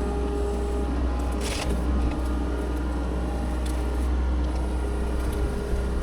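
A heavy diesel machine's engine running steadily with a deep rumble, with a few brief sharp cracks, the first about a second and a half in.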